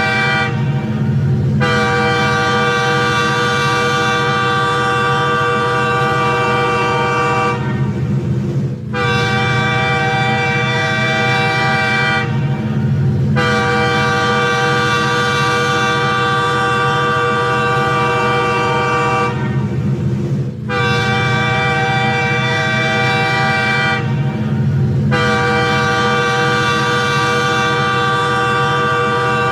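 Train horn sounding in a series of long, loud blasts of about three to six seconds each, broken by short pauses of about a second, over a steady low rumble.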